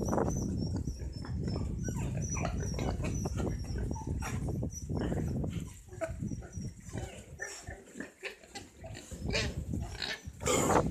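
Domestic pigs grunting in short, irregular calls, with one louder call near the end.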